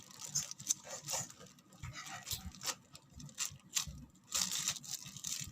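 Scattered light clicks and rustling from small squishy toys being handled, with a short louder rustle about four seconds in.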